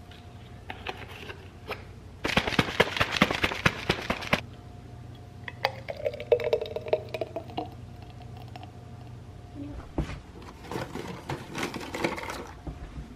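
A milkshake shaken hard in a plastic shaker cup, a dense rattle lasting about two seconds. It is then poured into a glass mason jar. Near the end comes a looser clatter of rummaging through a shelf.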